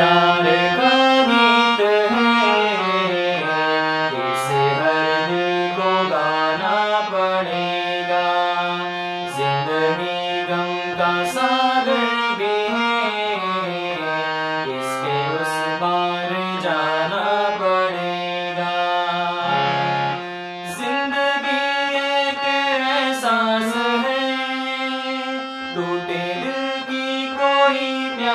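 Manohar Musicals hand harmonium playing a slow melody on its reeds, with a man's voice singing along. The sound dips briefly about twenty seconds in, then the playing resumes.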